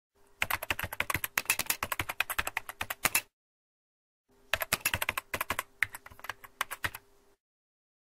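Typing on a computer keyboard: two bursts of rapid, irregular key clicks about three seconds each, a second's pause between them, with a faint steady hum underneath that stops with the typing.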